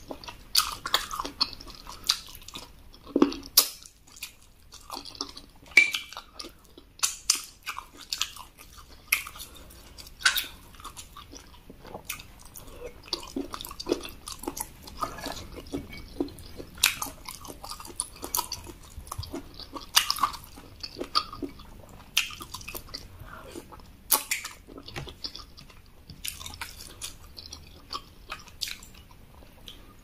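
Close-miked chewing and irregular wet mouth smacks and clicks of a person eating red eba (cassava garri) with egusi soup by hand.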